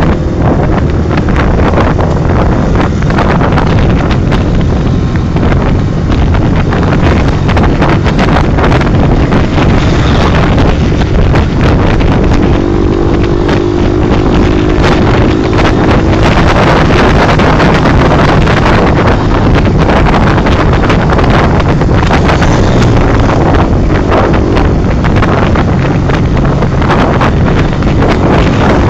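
Heavy wind buffeting on the microphone of a moving motorcycle, over the steady running of motorcycle engines at road speed.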